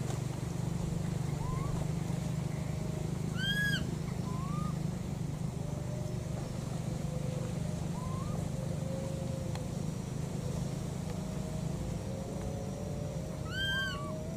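Baby macaque calling twice with short, high, rising-and-falling coos, about four seconds in and near the end, with fainter short upward calls between: an infant calling for its missing mother. A steady low engine-like hum runs underneath.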